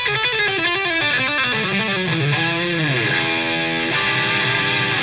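Guitar-led intro music: quick runs of notes that slide down in pitch, settling into a held chord about three seconds in.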